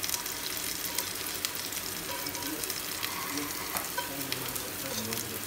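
Chopped onion frying in a little oil in a steel pot, a steady sizzle with fine crackles.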